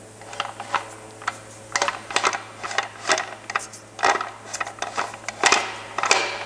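Manual gearbox from a Mercedes 250 diesel, out of the car, with its input shaft turned by hand: irregular clicking and rattling from inside the case, coming in uneven clusters. It is the sign of internal damage, something inside the transmission that is not happy.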